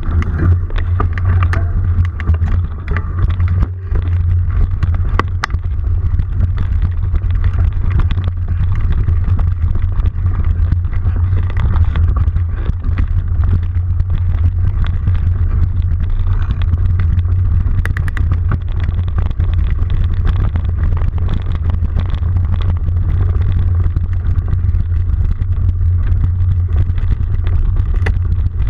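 Riding noise picked up by a bike-mounted camera on a rough dirt trail: a steady loud low rumble with frequent knocks and rattles as the bike goes over the ground.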